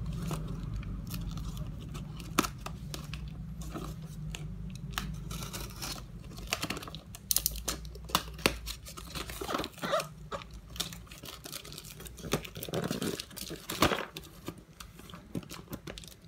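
Box cutter blade slicing through a cardboard box and its packing tape, with irregular scraping, tearing and crinkling as the box is cut open.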